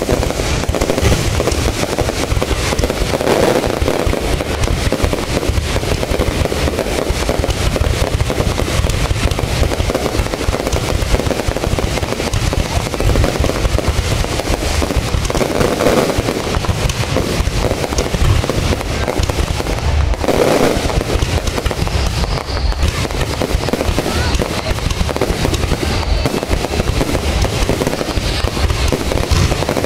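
Aerial fireworks display going off without a break: a dense run of bangs and crackling, with heavier volleys about 3, 16 and 20 seconds in.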